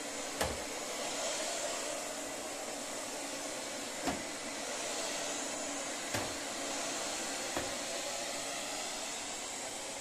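Robot vacuum cleaner running steadily, its motor and brushes giving an even whirring hiss, with four brief knocks a few seconds apart.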